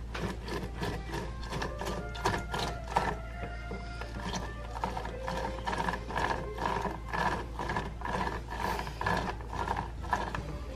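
A lemon half being twisted back and forth on a plastic hand citrus juicer: a rapid, uneven run of clicks and creaks as the fruit grinds on the ribbed reamer. Background music plays underneath.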